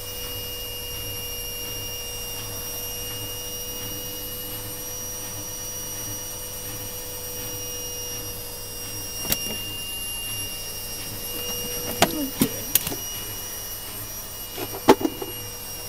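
Indesit WIDL146 washing machine running on its intermittent spin, its motor and drum giving a steady whine. Several sharp knocks and clicks come in the last third.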